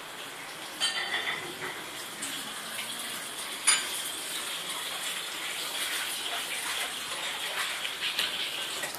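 Water running from a kitchen tap, with dishes and cutlery clinking; the sharpest clink comes a little under halfway through.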